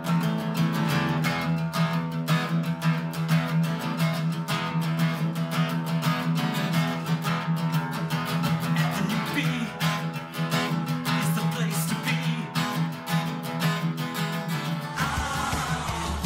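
Acoustic guitar strummed steadily in a quick rhythm, playing the song's chord pattern. The sound changes abruptly near the end.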